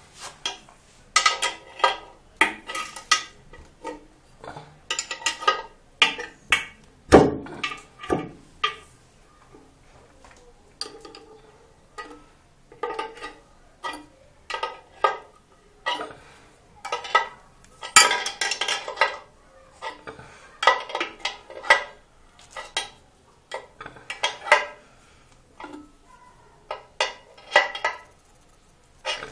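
Open-ended spanner clinking on a washbasin's fixing nut and washer as the nut is tightened. Short clusters of sharp metallic clinks come every second or two as the spanner is fitted, turned and refitted on the nut.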